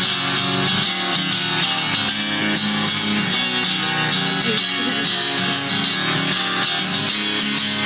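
Background music: a song with strummed guitar in an instrumental stretch between sung lines.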